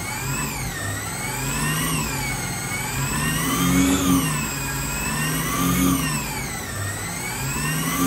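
Electric RC Formula One car's drive revving up and down about three times on the bench, its pitch rising and falling smoothly over a second or two each time. The slow ramps fit launch control holding back the throttle at its maximum delay setting.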